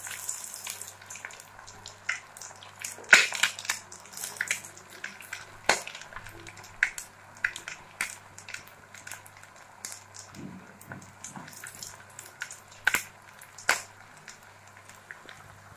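Egg onion pakoras deep-frying in hot oil in a kadai over low heat: steady sizzling with scattered crackles and pops, a few of them louder, around three seconds in, about six seconds in, and twice near the end.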